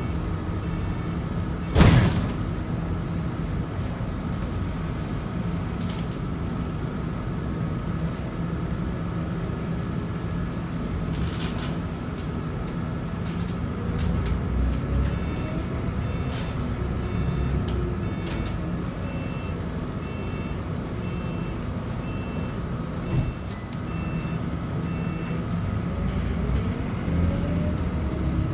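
Scania K94UB bus's 9-litre six-cylinder DC9 diesel engine running, heard from inside near the front, with one sharp bang about two seconds in. About halfway through, the engine pitch rises as the bus accelerates. After that, a regular short high beep repeats for several seconds.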